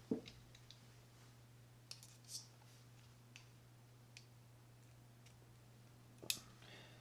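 Faint, scattered clicks and ticks of a small screw and screwdriver being handled against a baitcasting reel's metal frame while the thumb-bar screw is set, over a low steady hum. A few sharper clicks come just after the start and again near the end.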